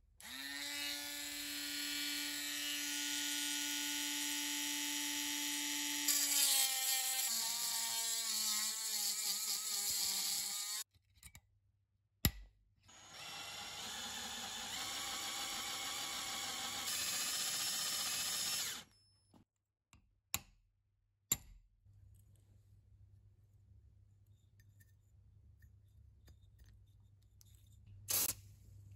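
Electric drill with a twist bit drilling out a rivet in a cast-iron pipe vice body: a steady motor whine whose pitch dips a couple of times under load, stopping about eleven seconds in, then a second run of about six seconds. A few light clicks follow near the end.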